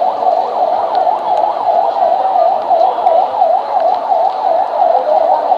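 Police vehicle siren sounding in a fast yelp, its pitch rising and falling about three times a second.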